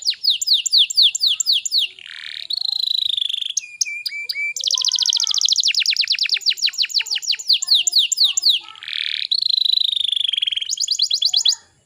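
Domestic canary singing a long song of fast trills, each a run of quick down-slurred notes, alternating with buzzy rolling phrases. The song breaks off suddenly near the end.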